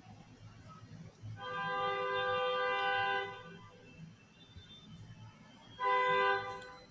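A horn sounding twice with a steady, unchanging pitch: a long blast of about two seconds, then a shorter one of about a second near the end.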